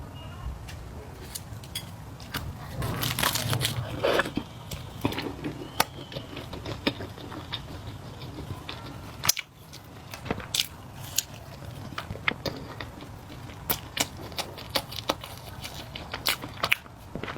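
Close-miked eating sounds from spicy flat noodles: wet mouth clicks and chewing, with many short sharp clicks. A denser, louder stretch comes about three to four seconds in.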